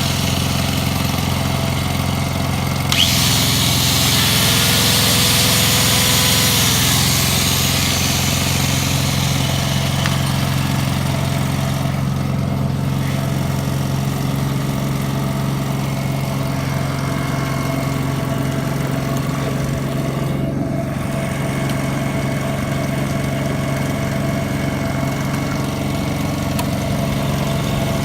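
Denyo My Welper 140GSS engine welder-generator running steadily at a constant speed. About three seconds in a hiss starts suddenly over the engine and fades away over the next several seconds.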